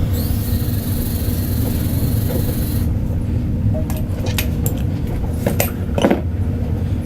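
Several sharp metallic clinks and knocks, the loudest about six seconds in, over a steady low hum. A high hiss runs for the first three seconds and then stops.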